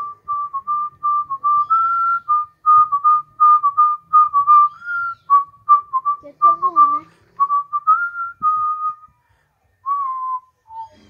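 A person whistling a tune: many short notes in a narrow high pitch range, stepping up and down with brief pauses. It ends on a falling note and one short, lower note near the end.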